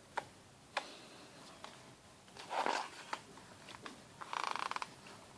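Pages of an album photobook being handled and turned: a few light taps, a soft paper swish about two and a half seconds in, and a quick run of fine ticks near the end as pages flutter past.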